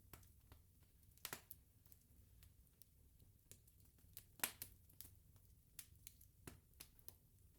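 Wood fire crackling: irregular small pops and snaps, with two louder pops about a second in and again about four and a half seconds in, over a faint low rumble of the burning.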